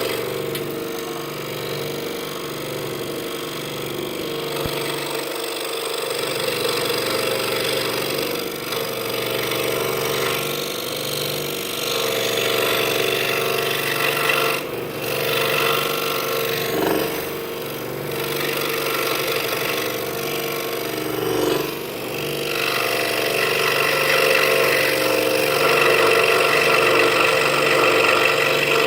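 Scroll saw running and cutting through half-inch pine with a Pegas modified-geometry No. 5 blade: a steady machine hum whose loudness rises and falls as the blade works, loudest in the last few seconds.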